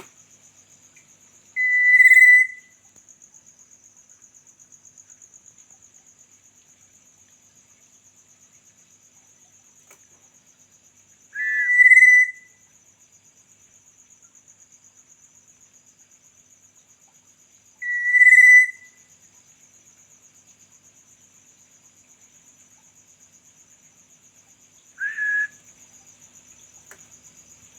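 Black-naped oriole giving single loud whistled calls, four in all several seconds apart, the last one fainter. A cricket trills steadily and high throughout.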